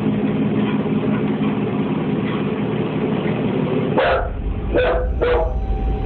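A pet dog barking three short times in the last third, over a steady low hum that runs underneath.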